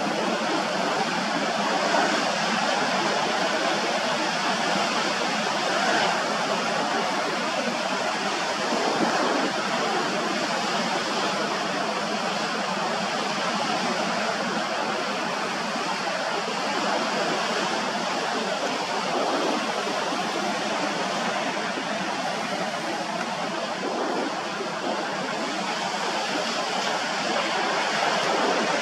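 Steady rushing hiss of the sea's surf, with small swells in loudness and no distinct breaks.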